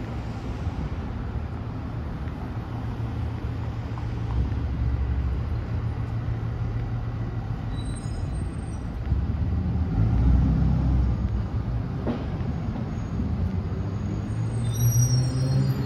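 Low, continuous rumble of heavy city traffic, swelling about ten seconds in as a large vehicle passes, with a single click about twelve seconds in.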